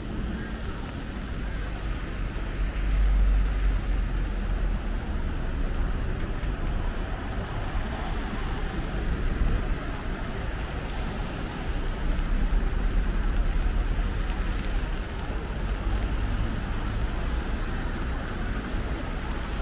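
City street ambience in the rain: a steady hiss of rain and passing traffic, with a deep rumble that swells a few seconds in and again past the middle.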